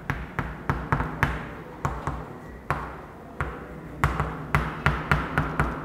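Writing on a board: a string of sharp, irregular taps and clicks, a few a second, over a low steady hum.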